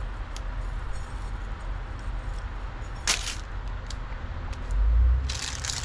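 Small handling noises as piston oil ring parts are picked up: a sharp click about three seconds in, then a low thump and rustling near the end, over a steady low hum.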